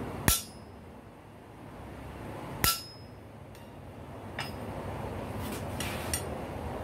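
Blacksmith's hammer striking on an anvil: two sharp, ringing blows about two and a half seconds apart, followed by a few fainter clinks near the end, over a steady background rushing noise.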